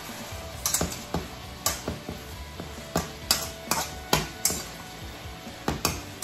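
Metal spatula clanking and scraping against a wok as a stir-fry is turned, in irregular sharp clacks about two a second, with the food sizzling faintly underneath.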